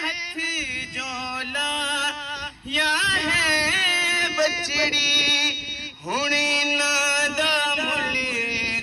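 Male voice chanting a noha (Shia lament) into a microphone, with drawn-out melismatic lines. About six seconds in, the voice glides up into a long held note.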